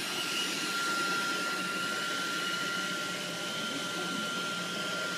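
Steady whirring noise of an electric appliance, with a thin high whine.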